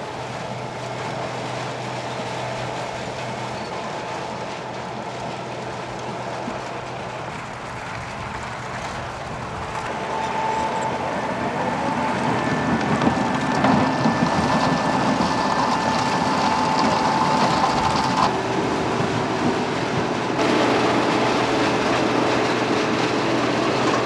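A Riecam RBM 230 sugar beet harvester at work: its 9.5-litre air-cooled six-cylinder Deutz engine running steadily under the rattle and clatter of its lifting, cleaning and elevating gear. The sound grows louder and busier from about ten seconds in, with a faint steady whine over the clatter.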